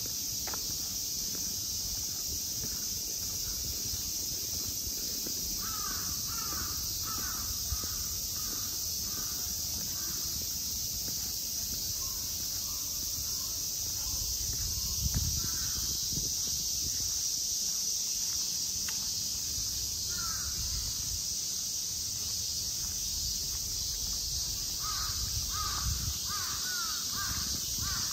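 Crows cawing in runs of quick caws, one about six seconds in and another near the end, with single caws between, over a steady high-pitched hiss.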